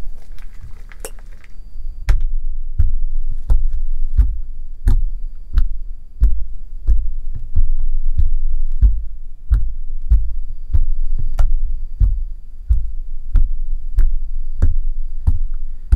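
Homemade fluffy slime squished in the hands, then two fingers poking into a flattened sheet of it. From about two seconds in, each poke makes a sharp pop with a low thump, about three every two seconds.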